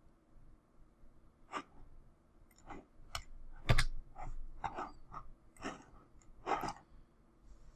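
Irregular computer mouse clicks and small knocks at a desk, about a dozen in all, with one louder thump about four seconds in.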